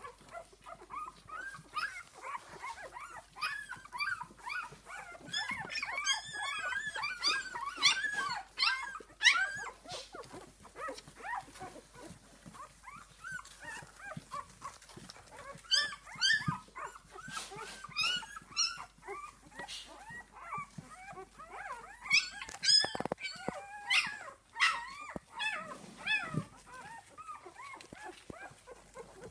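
Litter of six-day-old puppies squeaking and whimpering as they crawl and nurse on their mother, many short rising-and-falling squeals overlapping, in two busier spells.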